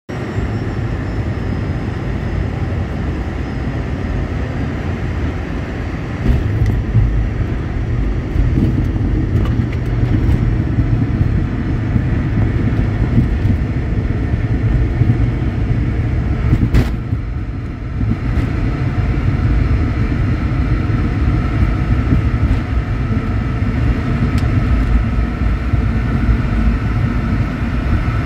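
Steady low rumble of engine and airflow inside a small private jet's cabin as it lands and rolls out along the runway. The noise grows louder about six seconds in, a single sharp click comes about two-thirds of the way through, and a steady whine comes in during the rollout.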